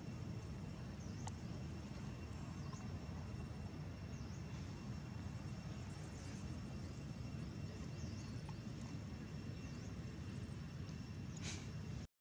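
Outdoor ambience: a steady low rumble with a faint, even high whine and small chirps repeating about once a second. There are no clear monkey calls.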